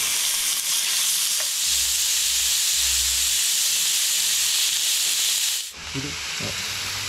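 Ground meat sizzling as it fries on a hot cast-iron Dutch oven lid, being stirred and broken up with a wooden spatula. The steady sizzle drops to a quieter level about six seconds in.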